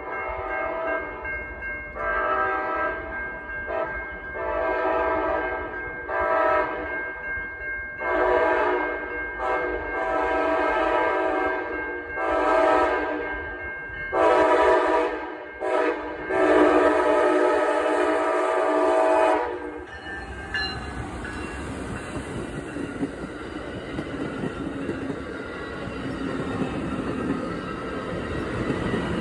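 Locomotive horn sounding a run of long and short blasts, the last one held about three seconds: the horn signal for a grade crossing as the train approaches. From about twenty seconds in, the train passes close by as a steady rumble of wheels on rails.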